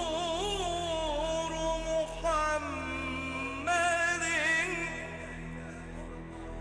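Male solo voice singing an Arabic religious hymn (inshad) in long, ornamented held notes over a steady low drone, with a quick run of ornaments about four seconds in; the voice drops away near the end.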